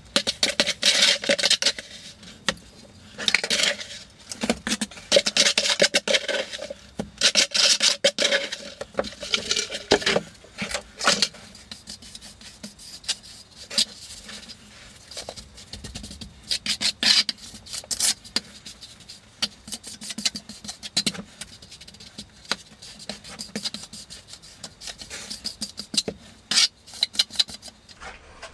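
A hand trowel scraping and packing dry-pack deck mud (a sand and cement mortar) around a shower drain flange, in many irregular rasping strokes with short pauses. This is the sound of shaping the mortar bed of a shower floor.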